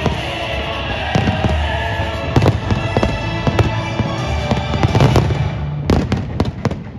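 Aerial firework shells bursting in a rapid run of sharp bangs, with music playing alongside. The music drops out near the end, leaving a few last separate bangs.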